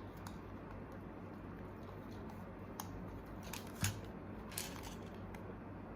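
Small plastic toy pieces being handled: a few short, light clicks and snaps, the loudest about four seconds in, over a low steady hum.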